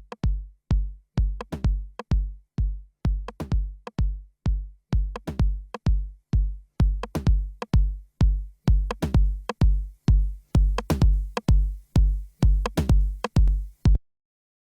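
Electronic drum loop from Ableton Live racks: a deep kick hits steadily about twice a second, with sharper percussion hits layered between, some with quick falling pitch. It cuts off abruptly about fourteen seconds in.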